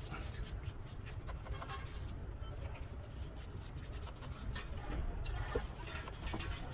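A thin wire being pushed and scraped down the tubes of a choked truck radiator core to clear the blockage: irregular short scratching strokes over a low steady rumble.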